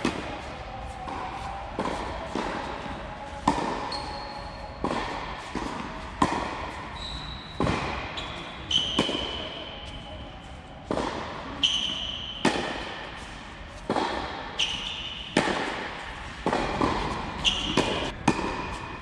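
Tennis rally on an indoor hard court: sharp racket hits and ball bounces about once a second, each echoing through the large hall, with brief high squeaks of tennis shoes on the court between shots.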